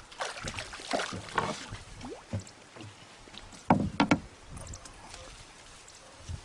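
Water sloshing and splashing as a person moves through waist-deep water, with two louder splashes close together about four seconds in.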